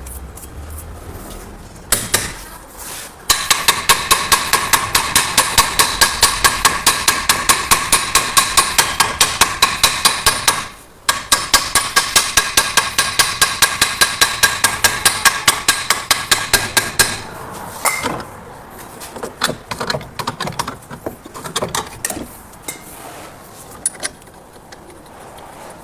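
Hammer blows on metal during a wheel hub bearing replacement: fast, even strikes at about four or five a second, each with a metallic ring. They run in two long bursts with a short break between them, then give way to slower, scattered knocks.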